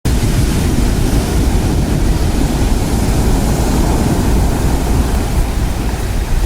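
Heavy typhoon surf breaking on a pebble beach: a loud, steady rush of waves with a deep, heavy rumble underneath.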